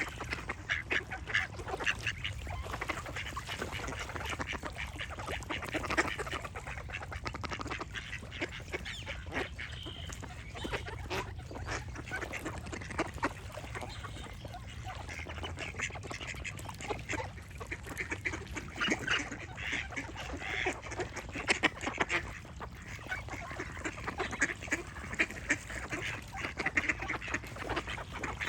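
A flock of ducks quacking, many short calls overlapping without a pause.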